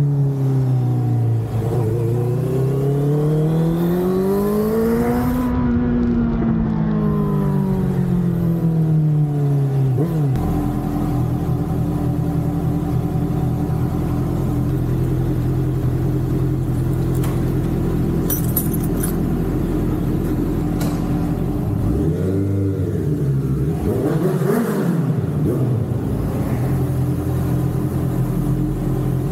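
2019 Honda CBR650R's inline-four engine through a Mivv GP Pro aftermarket exhaust, its pitch falling, climbing and falling again over the first ten seconds, then holding a steady note. Near the end the pitch briefly dips and climbs.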